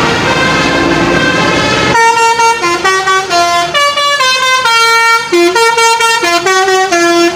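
Basuri V3 multi-tone telolet bus horn playing a quick melody of stepped notes, each held a fraction of a second. For the first two seconds it is blended with road and engine noise; after that the tune sounds out clearly on its own.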